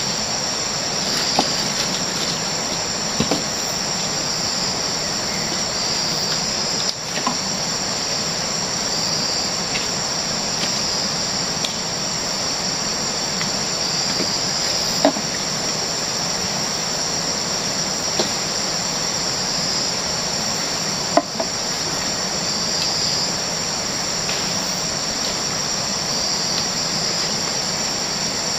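Steady chorus of jungle insects, pulsing slightly, with a handful of sharp knocks scattered through it as sago palm frond stalks are laid down against the log bearers.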